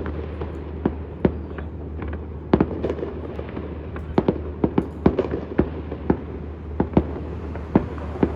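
Fireworks display: sharp bangs and crackling pops at irregular intervals, about one or two a second, over a steady low rumble.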